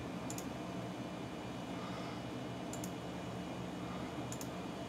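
Computer mouse button clicked three times, each click a quick press-and-release pair, over a steady low hum.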